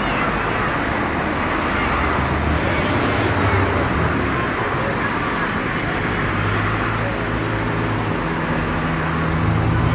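A low, steady engine hum over constant outdoor noise, growing stronger in the second half, with faint voices.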